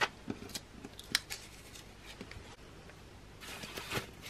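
Paper banknotes handled on a wooden table and slid into a laminated cash envelope: a few short, crisp crackles and taps, then a longer rustle with a soft thump near the end.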